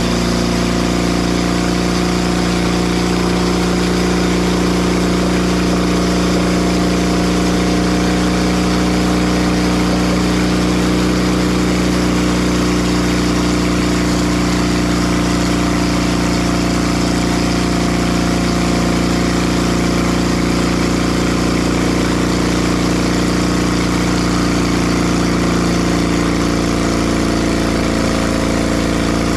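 Timber Harvester bandsaw mill's engine running steadily, its pitch shifting slightly near the end.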